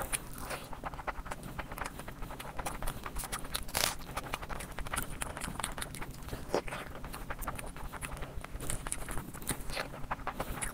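Close-miked eating sounds: wet chewing and lip smacking, a dense run of irregular sticky clicks as fried rice and curried egg are handled and eaten by hand, with one sharper click about four seconds in.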